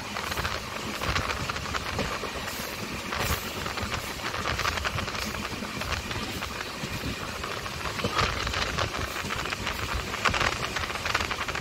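Express passenger train running at speed, heard from inside a coach: a steady rumble and hiss of wheels on rails and rushing air, with quick clicks and rattles throughout.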